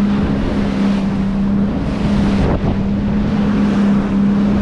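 A motorboat's outboard engine running steadily at speed, a constant hum under the rush of water and spray from the hull pushing through chop, with wind buffeting the microphone.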